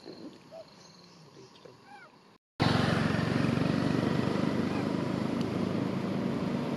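A few faint short squeaky calls from small monkeys. Then, after a sudden cut about two and a half seconds in, a loud steady vehicle engine and road noise with a low hum.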